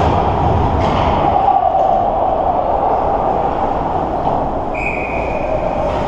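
Ice hockey rink ambience: a steady loud rumble with a few brief knocks early on, and a short steady high tone starting about five seconds in.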